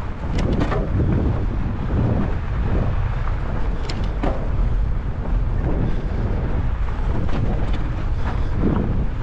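Wind buffeting the microphone of a fat bike rider moving fast along a snowy trail: a steady low rumble, with a few sharp clicks, two near the start and two about four seconds in.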